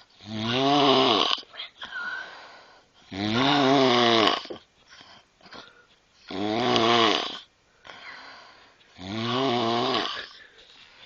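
A young woman passed out asleep, snoring loudly: four long snores about three seconds apart, with quieter breaths between them.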